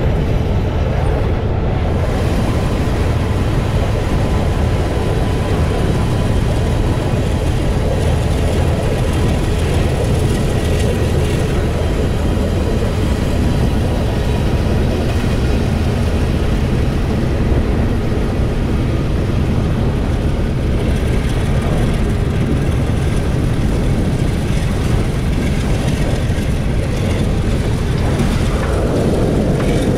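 Steady road and engine rumble of a car driving, heard from inside its cabin, with a diesel freight train running alongside.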